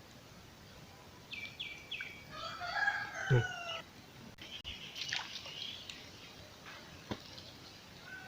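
A rooster crowing once, one drawn-out call about two seconds in that falls away at the end, with a dull thump in the middle of it. Faint short bird chirps follow.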